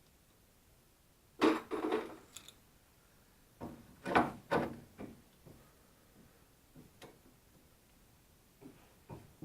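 Clanking and knocking of steel steering parts and tools being handled while a center link and tie rod assembly is worked into place. Two short bursts of clatter come a couple of seconds apart, followed by a few light taps near the end.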